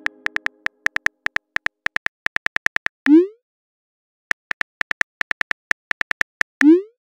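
Texting-app keyboard tap sounds: runs of rapid synthetic key clicks as a message is typed, each run ending in a short rising 'bloop' message-sent tone, about three seconds in and again near the end.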